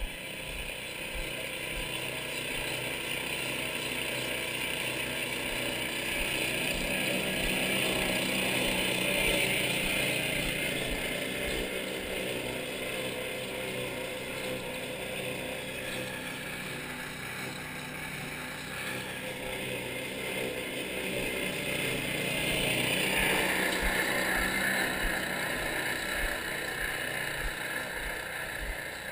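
Portable drum concrete mixer running steadily, churning a batch of concrete mix for curb extrusion.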